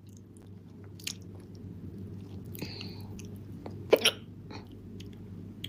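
A woman hiccupping: a sharp, loud double hiccup just before four seconds in, with a fainter catch about a second in and small mouth and breath sounds between, over a low steady hum.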